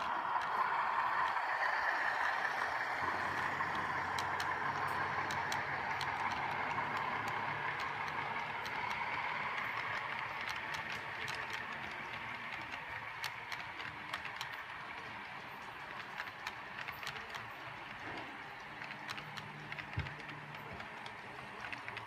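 Model Rapido VIA Rail FPA-4/FPB-4 diesel train with passenger cars rolling past on the track. Its steady running sound slowly fades as it moves away, and sharp clicks and rattles from the wheels on the rails come through as the cars pass.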